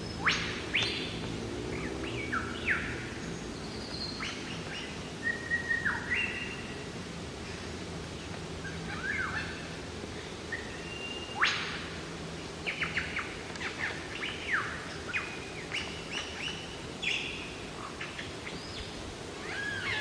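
Male superb lyrebird singing its courtship song: a varied string of loud, sharp downward-sweeping calls, held whistles and quick runs of notes.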